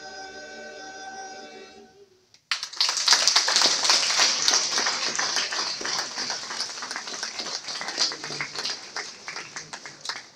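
A male choir holds its final chord, which cuts off about two seconds in; after a short silence the listeners break into loud applause that goes on and slowly fades.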